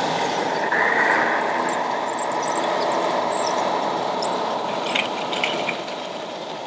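Remote-controlled model Komatsu crawler bulldozer driving over dirt: a steady engine-like running noise, with small high squeaks and clicks and a brief high whine about a second in.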